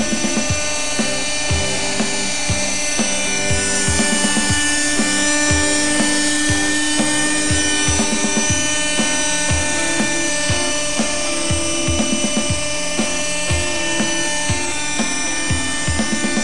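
Nitro RC helicopter's .18 glow engine whining steadily at hover, mixed with background music that has a steady beat of about two thumps a second.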